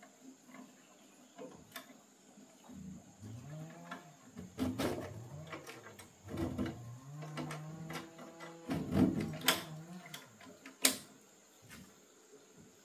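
Clanks and creaking metal groans from an old sheet-metal banana chopper as its hopper cover is worked loose and turned open by hand, with a sharper clank near the end.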